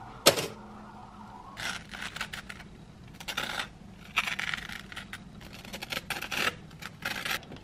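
A table knife scraping cream cheese across a crisp toasted bagel half in a run of short, uneven scraping strokes, after a single sharp click just after the start.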